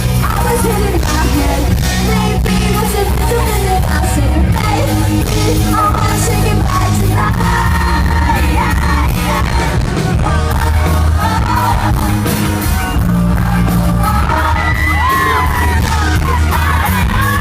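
A pop-rock band playing live, with a singer's voice over heavy bass and drums, and fans yelling along.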